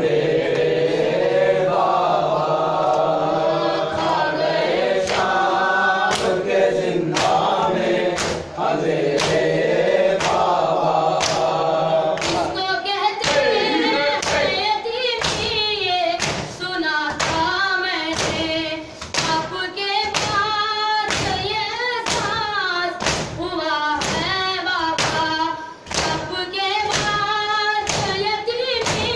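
A group of men chanting a noha (Shia lament) in unison while beating their chests with open hands in matam. The chest strikes are sparse at first, then settle about halfway through into a steady beat of roughly three strikes every two seconds.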